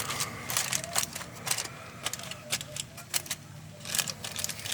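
Irregular crackles and light clicks from hamburgers and onions cooking in a foil pack on a grill.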